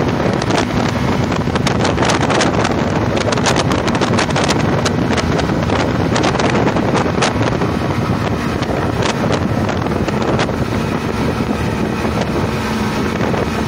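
Twin Yamaha 85 hp two-stroke outboard motors running at speed, with the wake rushing and heavy wind buffeting on the microphone.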